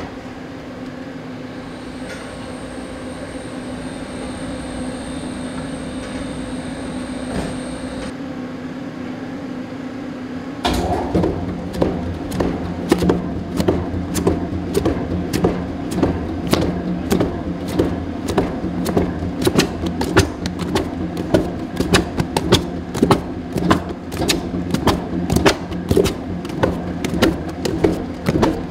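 Industrial food-processing machine running with a steady hum, then about ten seconds in its mechanism starts up with a sudden, louder stream of rapid, irregular clattering and knocking.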